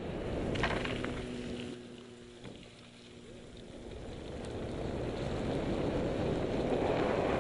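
Rushing wind noise and rumble on the microphone that dips about two seconds in and then builds steadily.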